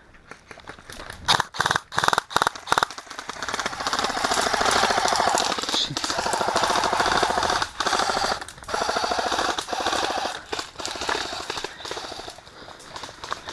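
Airsoft electric rifle firing: a few single shots and short bursts at first, then long rapid full-auto bursts that chatter on for several seconds before breaking off near the end.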